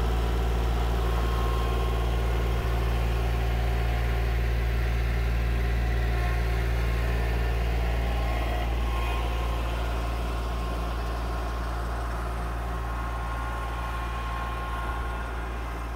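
A vehicle engine running steadily at an even speed, its level easing down over the last several seconds.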